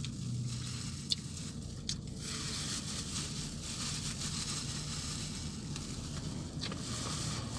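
Eating by hand in a thin plastic glove: chewing, with the glove squishing and rustling against rice, over a steady low hum inside a vehicle cabin. There are two small clicks in the first two seconds, and the rustle grows broader from about two seconds in.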